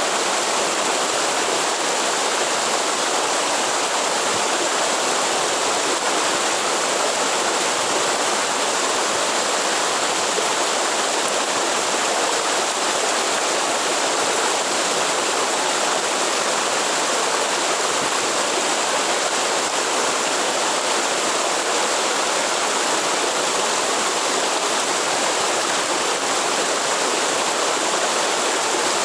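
Waterfall in the forest: a steady, even rush of falling water.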